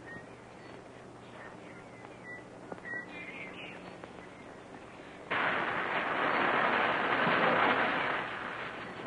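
A lit blasting fuse hissing and sputtering: faint crackles at first, then a loud steady hiss that starts abruptly about five seconds in.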